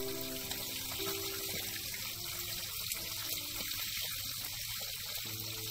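Already-steamed Indian mackerel frying in hot oil in a wok, giving a steady sizzling hiss as the skin crisps.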